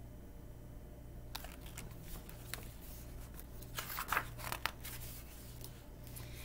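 Handling noise from a hardcover picture book as it is lowered and a page is turned: a scatter of short paper rustles and light taps starting about a second in, busiest around four seconds.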